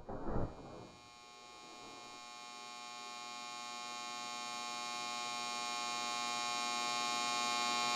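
A short thud, then a steady buzzing hum with many overtones that grows steadily louder.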